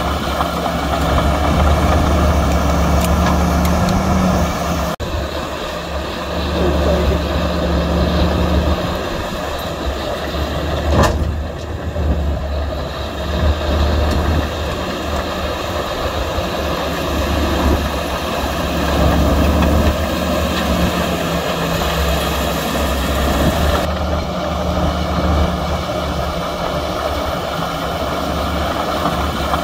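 Diesel engines of heavy earthmoving machines running steadily as a deep, continuous drone. The sound changes abruptly about five and twenty-four seconds in, and there is a single sharp knock about eleven seconds in.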